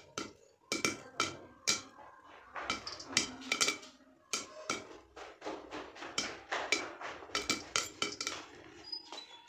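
Popcorn popping in a covered metal kadhai: irregular sharp pops, a few a second, as kernels burst and strike the glass lid and the pan. The pan is nearly full, late in the batch.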